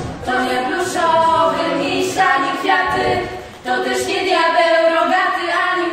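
A small group of young female voices singing a cappella in harmony, with a brief break between phrases a little past halfway.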